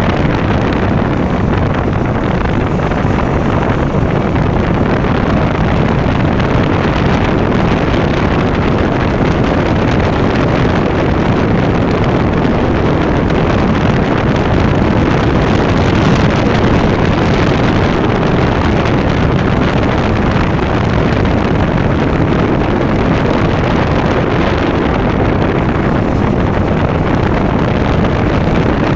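KTM Duke motorcycle engine running steadily at riding speed, mixed with wind rushing over the microphone.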